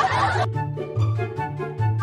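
Background music with a repeating bass line and light melody notes. A loud hiss-like layer over it cuts off suddenly about half a second in.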